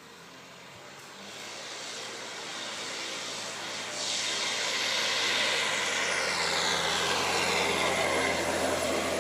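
A motor vehicle approaching, its engine and road noise growing steadily louder over several seconds, with a sweeping, whooshing quality as it nears.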